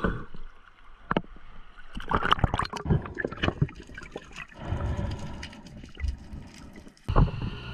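Seawater sloshing and gurgling around a camera at and below the surface, with many scattered sharp clicks and knocks.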